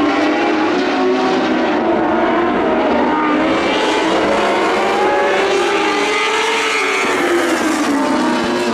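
Several sprint car engines running hard together at racing speed, their pitches rising and falling as the cars lap, with one sweeping down and back up near the end.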